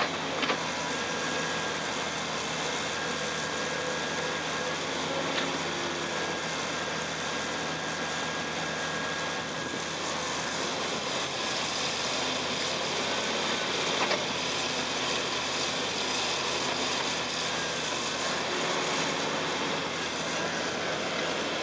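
Caterpillar 325C crawler excavator's diesel engine and hydraulics running steadily as it digs, swings and loads a bucket of fly ash into an articulated dump truck, with the dump truck's engine running alongside. A few short knocks stand out: about half a second in, about five seconds in and about fourteen seconds in.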